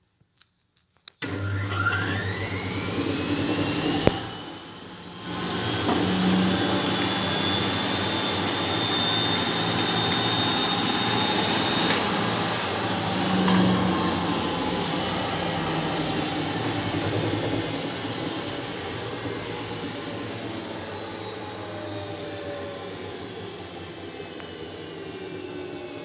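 IFB front-loading washing machine suddenly starting a fast spin about a second in: the drum and motor run with a loud rushing noise and a whine that climbs quickly at first. After a short dip about four seconds in, the whine holds high, then slowly falls in pitch through the second half while the noise eases off a little.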